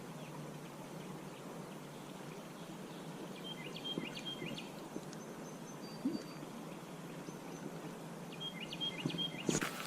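A songbird sings the same short chirping phrase twice, about five seconds apart, over the steady rush of creek water. A few soft knocks come in between, and a sudden louder rush of noise starts just before the end.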